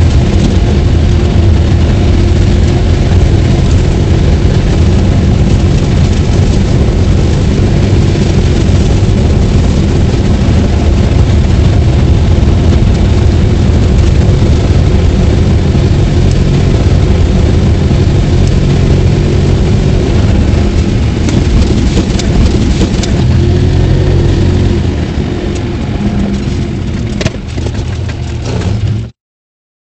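Ligier X-Pro's 505 cc two-cylinder diesel engine running under load while driving, heard from inside the cab. It drops back in level near the end, then the sound cuts off suddenly.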